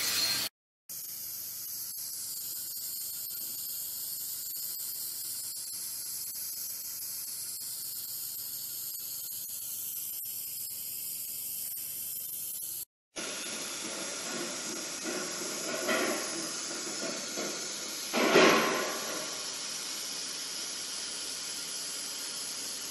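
Steady hiss of a handheld fiber laser welding gun at work, the shielding gas rushing from its nozzle, in two stretches separated by a moment of silence. The second stretch is fuller and has a brief louder swell in its later part.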